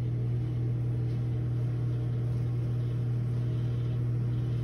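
A steady low hum that holds one pitch without change.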